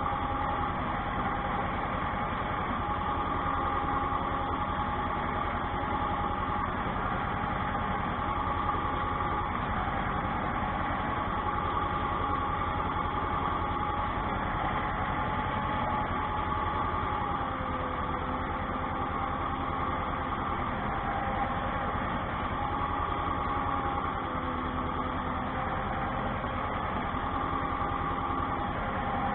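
Ursus tractor's diesel engine running steadily under light load while pulling a potato hiller, heard from inside the cab. A whine in its sound drops in pitch a little over halfway through and rises again near the end.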